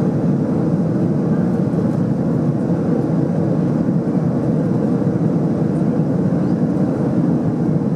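Steady in-flight cabin noise of an Airbus A330-200 airliner: the even roar of engines and airflow heard from a window seat, with a faint steady hum running through it.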